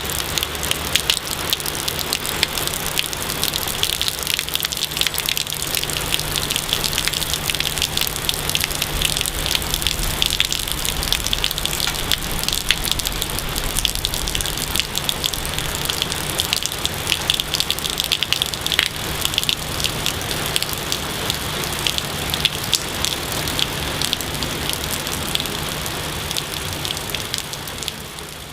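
Steady rain falling, a dense patter of drops with no break, fading out near the end.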